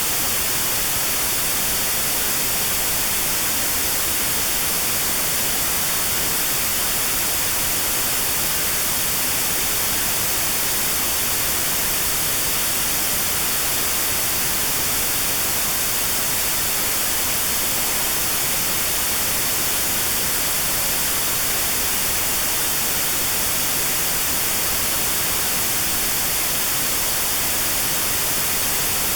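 Steady white noise with a narrow band around 4 kHz cut out, a notched-noise tinnitus therapy signal, unchanging throughout.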